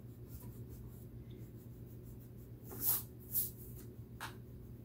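Eraser rubbing pencil lines off drawing paper in quick back-and-forth strokes, with a few louder swipes about three seconds in.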